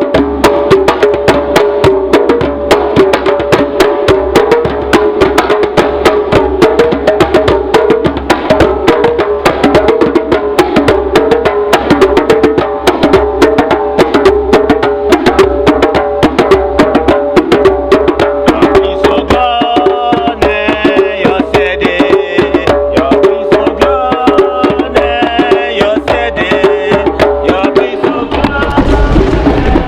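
Several djembe hand drums played together in a fast, dense, unbroken rhythm.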